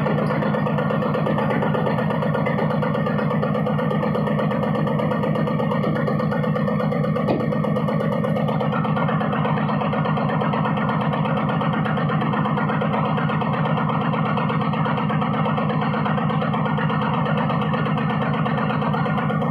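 Mini excavator engine running steadily at an even speed, with a single short knock about seven seconds in.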